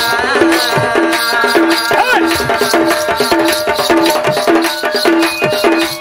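Danda nrutya folk accompaniment between sung lines. A hand drum beats a steady rhythm of roughly one and a half to two beats a second, its bass strokes gliding in pitch, with a shaker or small cymbals ticking along. A wavering melodic line rises above it near the start and again about two seconds in.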